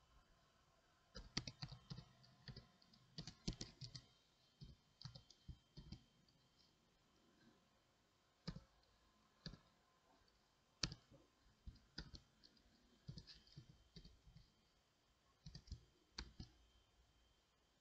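Faint computer keyboard keys clicking as text is typed: quick irregular runs of keystrokes, then scattered single presses with pauses between.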